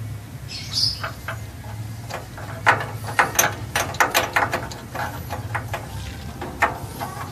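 Hand tools clicking and knocking irregularly against metal engine parts during spark-plug work, the clicks thickest in the middle, over a steady low hum.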